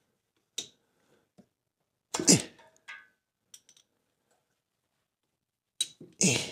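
Sparse handling noises of hand work with a spark plug socket in an engine bay: a sharp click about half a second in, scattered faint ticks, and two short, louder rough bursts, one a little after two seconds and one near the end.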